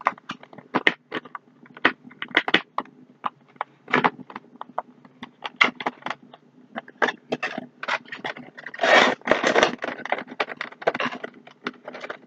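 Clear plastic toy packaging being handled and pried open: a run of sharp plastic crinkles and clicks, thickening into a denser crackle about nine seconds in.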